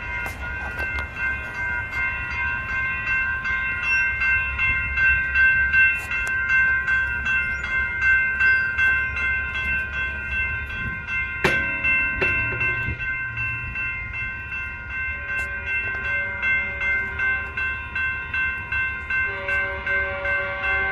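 Railroad grade-crossing warning bell ringing steadily at about two strokes a second while the crossing is active. From about two-thirds of the way in, an approaching train's horn sounds in short blasts, then a longer one near the end.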